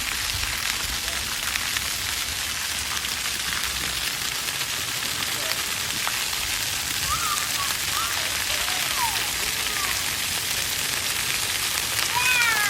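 Water fountain splashing in a steady hiss, with a few short, faint calls rising and falling over it, a small cluster of them near the end.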